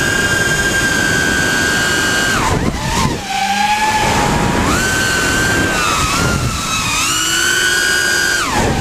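Five-inch FPV racing quadcopter's Lumenier 2206 2350kv brushless motors whining, with wind rushing underneath. The pitch drops sharply a little over two seconds in as the throttle is chopped, climbs back about four and a half seconds in, rises again near seven seconds and dips once more near the end.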